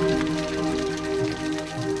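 Calm background music with long held notes, over the spatter and hiss of falling water from a winter waterfall.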